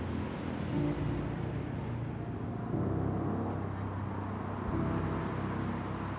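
Road traffic on a city street, a steady rumble of passing cars, under slow held low notes of film score that change about every two seconds.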